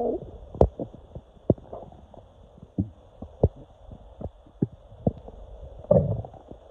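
Stomach and intestines gurgling: a rumbling gurgle at the start and another near the end, with irregular short pops and clicks between. The sounds come from gas moving through cramping intestines.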